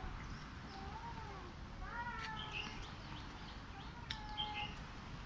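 A parrot making three short, whining calls that arch up and then down in pitch, sounding like crying or mewing.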